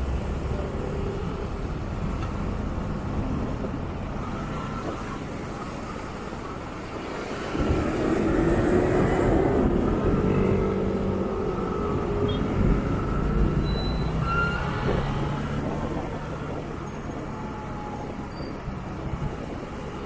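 A motorcycle running in slow city traffic, heard from the rider's seat over engine and road noise from the vehicles around it. The noise swells louder for a few seconds in the middle.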